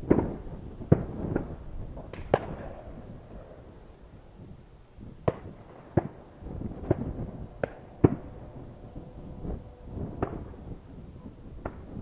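Distant shotgun shots from duck hunters echoing across a lake: about a dozen sharp reports at irregular intervals, some in quick pairs, each trailing off in an echo.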